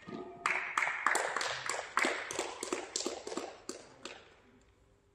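A quick, regular series of sharp taps or claps, about four a second, dying away after about four seconds, then silence.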